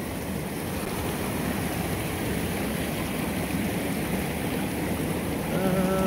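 Small rocky creek running high after a night of rain, water rushing and splashing over stones in a steady wash.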